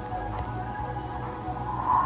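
Background music with held melody notes.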